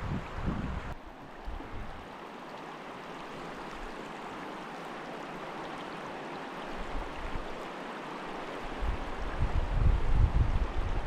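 Steady rushing of flowing river water, with wind buffeting the microphone in the first second and again near the end.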